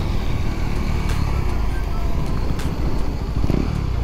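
KTM Duke 390's single-cylinder engine running as the motorcycle slows down in traffic, heard from the rider's seat over a steady rumble.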